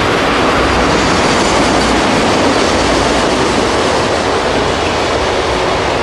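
Freight train of autorack cars rolling past close by: a steady, loud noise of steel wheels running on the rails.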